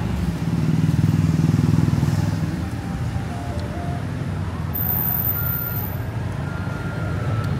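Street traffic: a vehicle engine running close by, loudest for the first couple of seconds, then an even rumble of passing cars and motorbikes.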